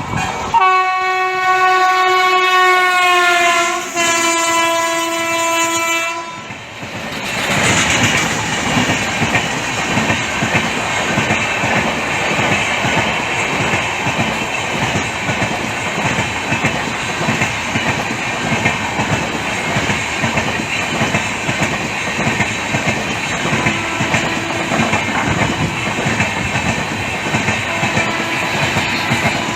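Train horn sounding two long blasts, the pitch sagging toward the end of each, then the train passing with steady wheel clatter over the rail joints.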